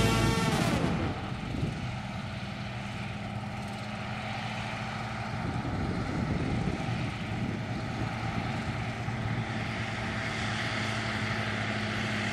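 Combine harvester running steadily while harvesting, a constant engine and machinery drone. It is louder for the first second or so, then settles.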